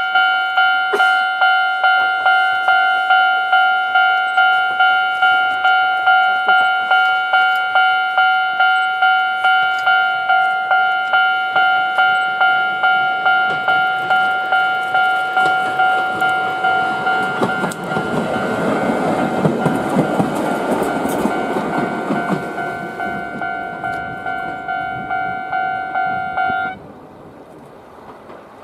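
Japanese level-crossing alarm ringing in repeated electronic dings, about two a second, as a Chichibu Railway Deki electric locomotive (No. 102) passes. The locomotive's wheels rumble and clatter over the rails about two-thirds of the way through, and the crossing bell stops suddenly near the end.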